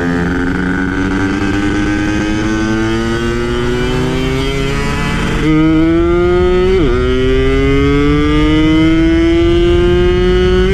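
Two-stroke Yamaha F1ZR engine in 120cc tune running hard under way. Its pitch climbs steadily through a gear, drops sharply at an upshift about seven seconds in, and climbs again. The sound gets suddenly louder about five and a half seconds in.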